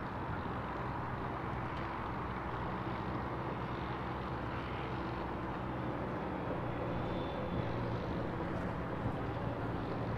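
Steady engine drone with a constant low hum, over even outdoor background noise.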